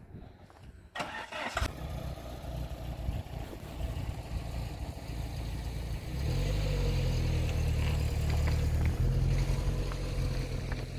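Peugeot 405 sedan's engine starting with a short burst about a second in, then running with a low rumble. About six seconds in it revs up and holds a louder, steady, higher pitch.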